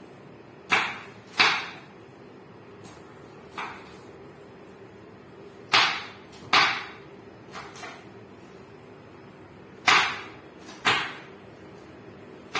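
Kitchen knife chopping on a cutting board: about nine sharp, separate strikes at irregular spacing, some in quick pairs, over a faint steady hum.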